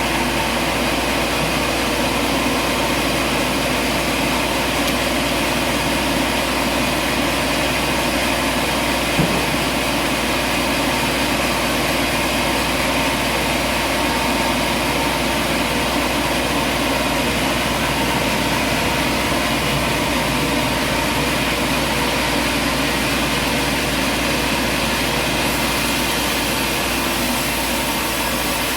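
Steady drone of machinery running, even and unchanging, with one short knock about nine seconds in.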